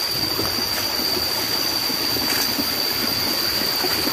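Steady outdoor rushing noise under a constant high-pitched insect drone, such as crickets.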